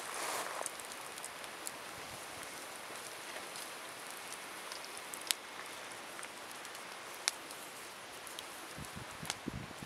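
Firewood burning in a campfire or wood stove: a steady hiss with two sharp pops, about five and seven seconds in.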